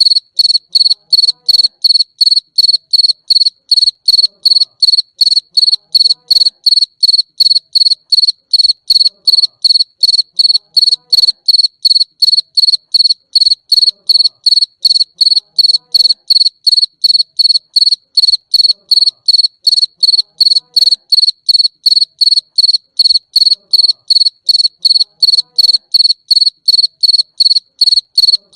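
A cricket chirping steadily: a clear, high, ringing tone pulsed evenly at about four chirps a second.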